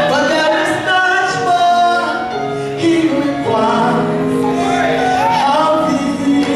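Gospel praise team singing through microphones, a woman's voice leading with long held notes over the other singers.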